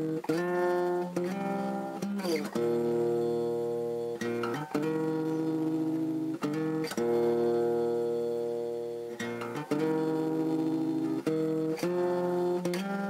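Acoustic guitar background music: chords struck every second or two and left to ring.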